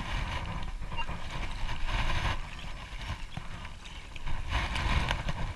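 Long-handled sand scoop digging into wet sand in shallow seawater, with water sloshing and sand scraping in two stretches, over a steady low rumble.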